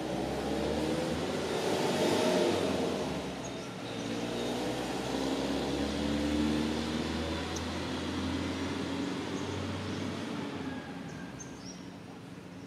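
A motor vehicle engine running, its pitch gliding as it swells about two seconds in and again around six seconds, then fading toward the end.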